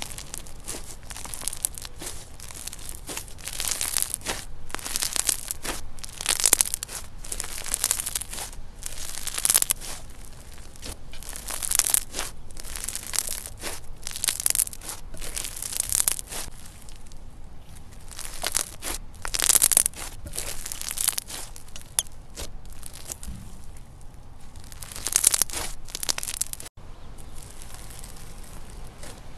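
Thick, fluffy yellow slime being kneaded, stretched and pressed flat by hand, each squeeze and pull giving a crisp, sticky crunch, roughly once a second.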